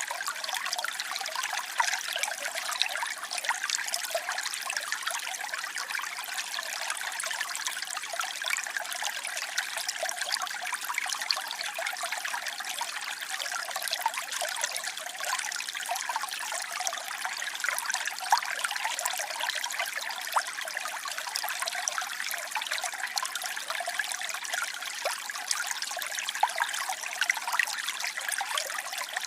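Waterfall: water falling and splashing steadily, a bright, trickling hiss with no deep rumble.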